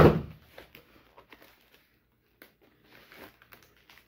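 A sudden sharp hit at the start, then light rustling, crinkling and small clicks as a wrapped package is handled and picked at by hand.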